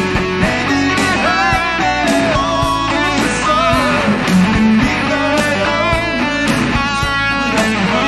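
Electric guitar playing an improvised lead solo, single-note lines with bends and vibrato, over a rock backing track with a steady drum beat.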